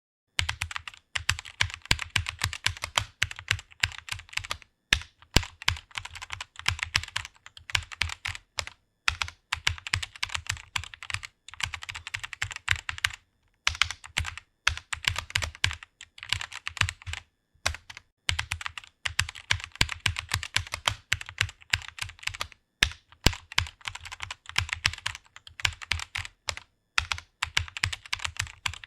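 Computer keyboard being typed on in fast, steady runs of key clicks, broken by short pauses now and then.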